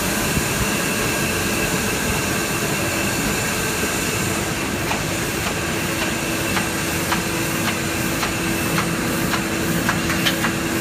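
Four-colour sheet-fed offset printing press running at speed, a dense steady mechanical noise. From about halfway, a regular clicking about twice a second and a steady low hum join it.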